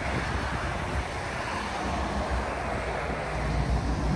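Wind buffeting the microphone over the steady rush of highway traffic, with a lorry passing.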